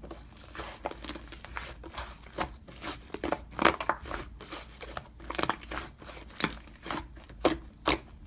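Slime being pressed and squished by hand, making irregular crackly pops and clicks.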